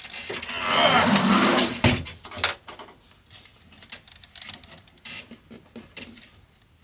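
Handling noise from a leather car seat being worked on: a loud rustling scrape lasting about a second and a half, then a sharp click, then lighter rustles and taps as a hand smooths the seat cushion's leather cover.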